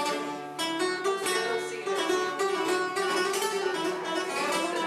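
Flamenco guitar music, a quick run of plucked notes.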